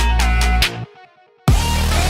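Electronic dubstep-style background music with a steady beat; about two-thirds of a second in it cuts out almost to silence, then comes back with a heavy bass drop about a second and a half in.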